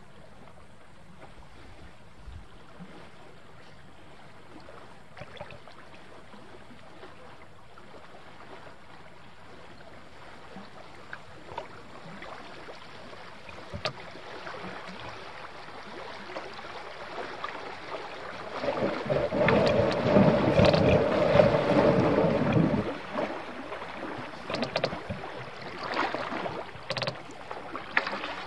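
A canoe moving down a creek: a steady rush of water around the hull that builds slowly and is loudest for about four seconds two-thirds of the way through, followed by a few sharp knocks.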